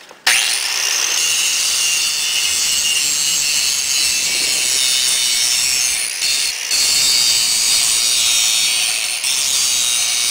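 Handheld electric angle grinder switched on about a quarter second in, then grinding metal: a steady high whine over harsh grinding noise. The noise eases briefly a little after six seconds in and again near nine seconds.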